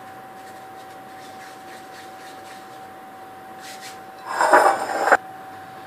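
A rough rubbing scrape, under a second long, that stops abruptly, with faint lighter scrapes before it and a steady high hum throughout.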